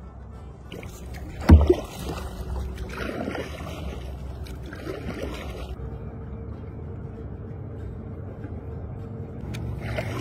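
Kayak paddle strokes: the blade swishing and splashing through the water every second or two, over a steady low rumble. A single loud knock comes about one and a half seconds in.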